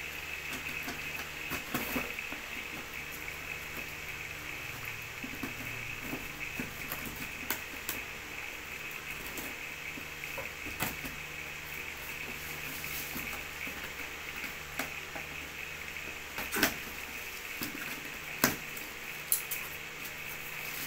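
A box cutter scraping and clicking along packing tape on a cardboard box, then a few sharper cardboard knocks and rustles near the end as the flaps are pulled open, over a steady background hum.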